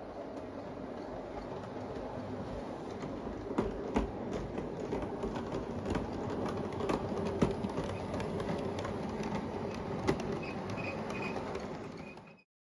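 O gauge model steam tank locomotive pulling goods vans along the track: a steady running whir with irregular sharp clicks from the wheels on the rails. It grows louder as the train comes closer and stops abruptly near the end.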